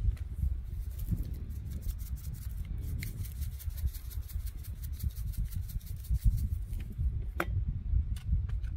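Seasoning shaken from a spice shaker over a steak on a grill: quick repeated scratchy rattling strokes, with a sharp click about seven seconds in, over a steady low rumble.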